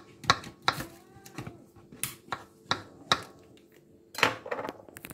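Kitchen knife slicing button mushrooms on a wooden chopping board: a run of irregular sharp taps, two or three a second, as the blade meets the board. A longer scraping rustle comes about four seconds in.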